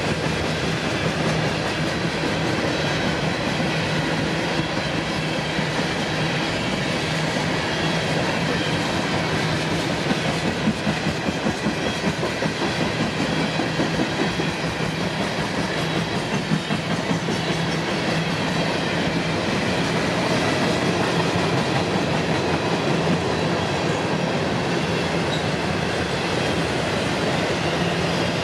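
Freight cars of a CSX manifest train, refrigerated boxcars then covered hoppers, rolling past with a steady rumble of steel wheels on rail. A run of uneven clacks comes about a third of the way in.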